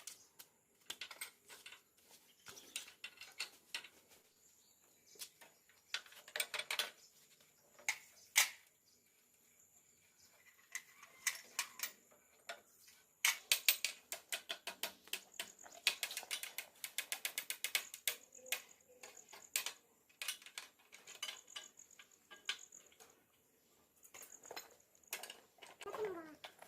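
Irregular metallic clicks, taps and rattles of bicycle parts and hand tools being worked, with a long run of rapid ticking in the middle.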